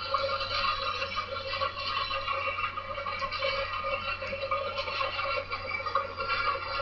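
HO scale model train of covered hopper cars rolling along the track: a steady metallic rattle of the wheels on the rails, with faint clicks here and there.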